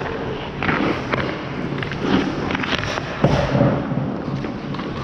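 Ice hockey goalie's skates scraping on the ice and his pads and stick thudding as he shuffles and drops around the crease, with several sharp knocks, the loudest a little past three seconds in.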